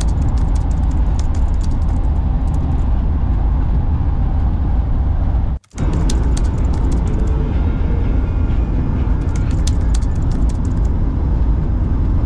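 Volkswagen Kombi driving at highway speed, heard from inside the cabin: a steady low engine and road-noise drone with small rattles and clicks from the van's interior. The sound drops out for a moment about halfway through, then carries on the same.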